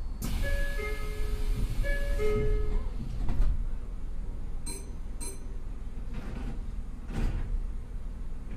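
A two-tone ding-dong chime sounds twice in the first couple of seconds over a burst of hiss, followed by a few dull knocks, inside a train stopped at a station.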